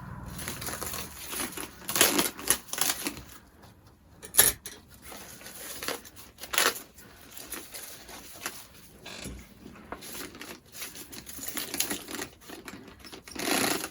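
Irregular clinks and rattles of a handbag's metal chain strap being handled and unwrapped, with a few louder clacks among them.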